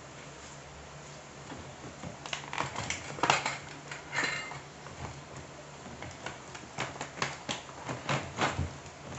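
Irregular light clicks and knocks, a few each second, starting about two seconds in and loudest a little after three seconds, as objects are handled. A steady low hum runs underneath.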